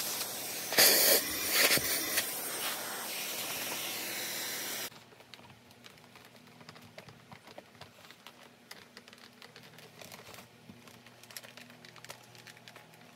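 Vacuum cleaner sucking through a hose nozzle held against a Dyson handheld's cyclone: a loud rushing hiss that surges louder about a second in and again near two seconds, then cuts off abruptly about five seconds in. After that, faint rustling of a microfibre cloth wiping the vacuum's plastic body.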